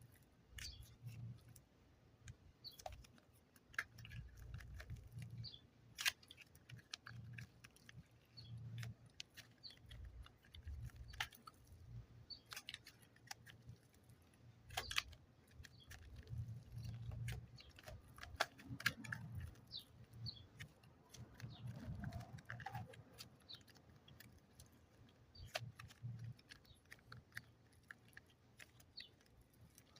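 Hands handling modelling clay and its packaging: irregular crinkles and sharp little clicks over soft low thuds.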